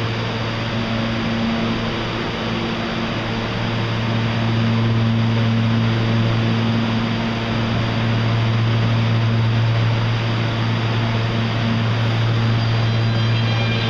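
New York City subway train in a tunnel: a steady low hum under an even rushing rumble, growing a little louder about four seconds in.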